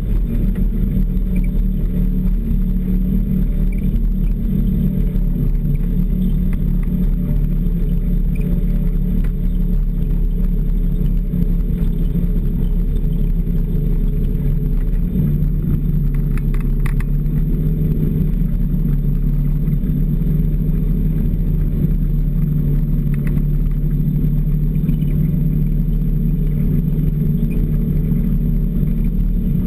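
Snowmobile engine running steadily while under way, its pitch easing down and back up a little around the middle. A brief clatter sounds just past halfway.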